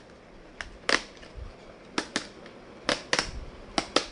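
A retail box and its packaging being opened and handled: a series of sharp clicks and taps, roughly two a second.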